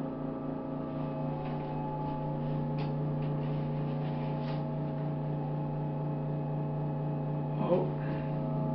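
Service elevator running as the car travels down: a steady hum made of several fixed tones, with a few faint clicks and rattles. A brief, louder wavering sound comes near the end.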